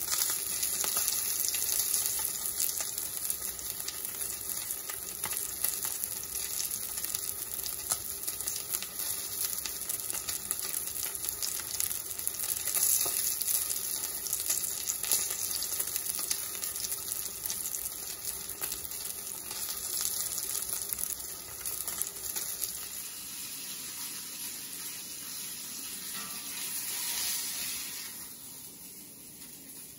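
Salmon fillet frying in oil in a cast iron skillet: a steady sizzle with dense crackling spatter. It quietens about three-quarters of the way through and fades out near the end.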